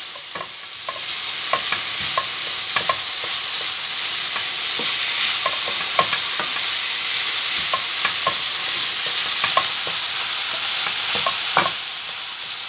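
Ground beef with diced onion and carrot sizzling in a frying pan as it browns, a steady hiss, while a wooden spatula stirs it with irregular scrapes and taps against the pan.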